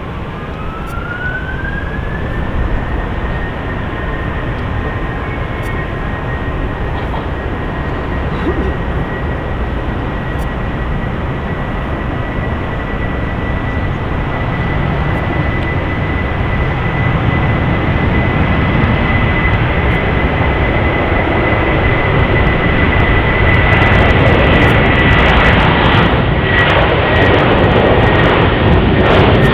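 Jet airliner engines spooling up: a whine rises over the first two seconds, then holds at a steady high pitch while the engine roar grows louder, turning crackly near the end, as for a takeoff run.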